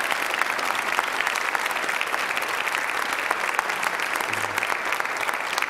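Church congregation applauding, many hands clapping in a dense, steady patter.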